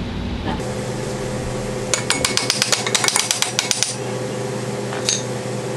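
Ratchet wrench clicking rapidly, about ten clicks a second for two seconds, as nuts on the suspension are run down, with one more click near the end; a steady hum underneath.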